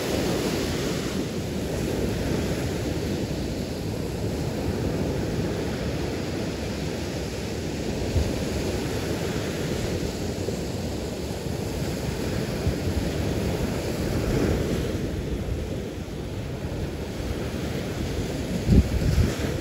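Gulf of Mexico surf breaking and washing up a sandy beach in a steady wash, with wind buffeting the microphone and a stronger gust near the end.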